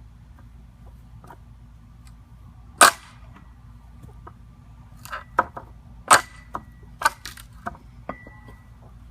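Pallet boards being pried apart with an Eizzy Bar Pro wrecking bar: one loud sharp crack about three seconds in, then a run of cracks and knocks of wood and nails giving way, a few of them leaving a brief metallic ring.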